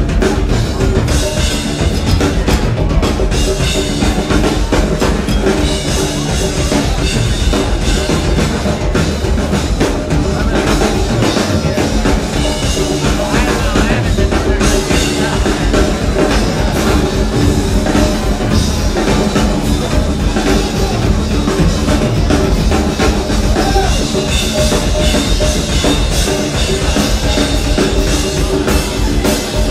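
Live rock band playing a steady, continuous jam, with a full drum kit driving a steady beat and bass drum prominent.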